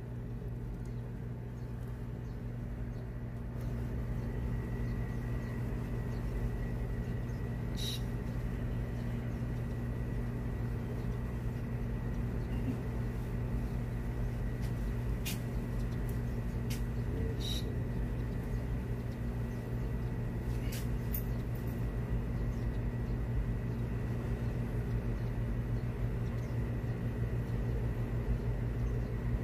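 A steady low hum with a faint high whine in it. It gets louder about four seconds in. A few faint clicks come through it.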